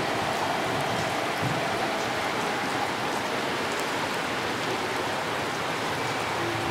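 Heavy rain falling on a station platform and railway tracks, a steady hiss.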